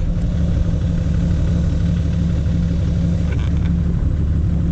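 Toyota Land Cruiser 80 Series engine idling steadily, a constant low hum.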